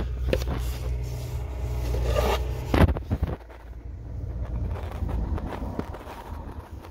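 Hands handling plastic parts: irregular rubbing and scraping, with a low rumble of handling noise on the microphone and a sharp click a little under three seconds in.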